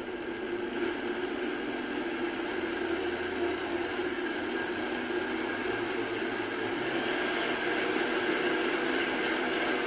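High-speed countertop blender running steadily as it blends a liquid latte drink, a motor hum under a wide whirring hiss. It grows slightly louder and brighter about seven seconds in.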